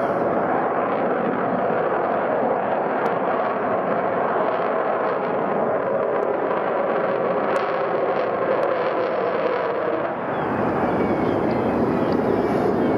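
Loud, steady jet noise from an Avro Vulcan's four Rolls-Royce Olympus engines as it flies a display pass, with a brief dip and change in tone about ten seconds in.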